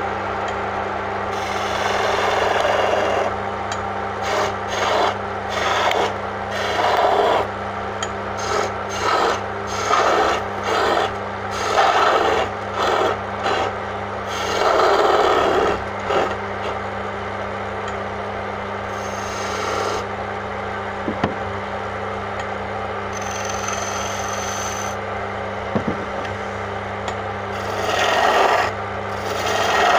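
Wood lathe running with a steady hum while a hand turning chisel cuts into a spinning wooden chess-rook blank. The cutting comes as repeated scraping strokes through the first half and again near the end.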